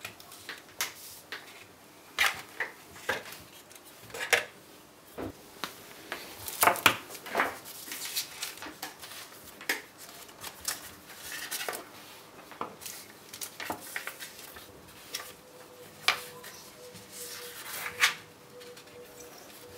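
Handling noises on a wooden tabletop: small objects and cardboard pieces set down and moved, with scattered sharp clicks and taps at irregular intervals, the loudest cluster about a third of the way in, and the paper pages of an instruction booklet rustling as they are turned.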